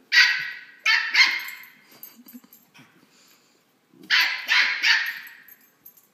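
West Highland white terrier puppy barking high-pitched yaps during play: two quick runs of three barks, one at the start and one about four seconds in.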